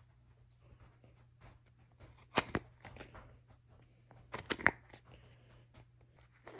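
Utility knife cutting around the cap of a cardboard mailing tube: faint scraping of the blade on the cardboard, with two pairs of sharp clicks, about two and four and a half seconds in.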